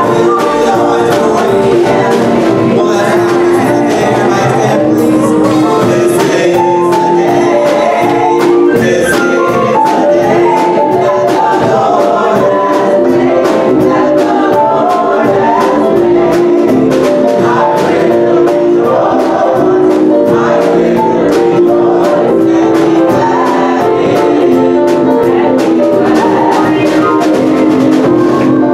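Gospel worship song sung by a small group of women into handheld microphones, amplified through the room's sound system, with a steady beat underneath.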